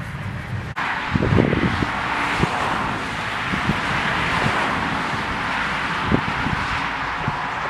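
Central Pneumatic air hammer with a chisel bit starting up suddenly just under a second in and running steadily, with scattered heavier knocks, as it hammers at a seized front wheel hub to break it loose.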